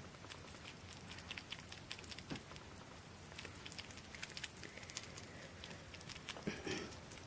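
Sugar glider chewing a mealworm: faint, quick, irregular crunching clicks, with one short louder sound near the end.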